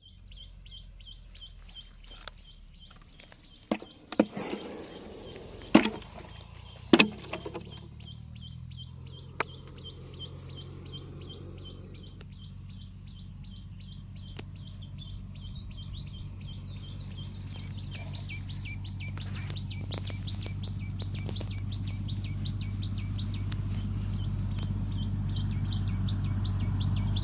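High, rapid chirping repeated about five times a second, over a low steady hum that grows louder. A few sharp knocks sound in the first ten seconds.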